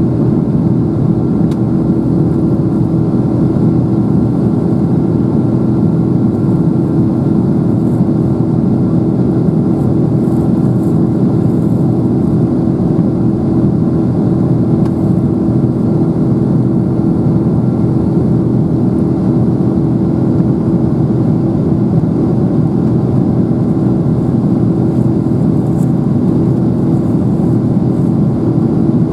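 Boeing 777-200's Pratt & Whitney PW4000 turbofan engines at climb power just after takeoff, heard inside the cabin beside the engine: a steady, loud roar with a low hum held through it.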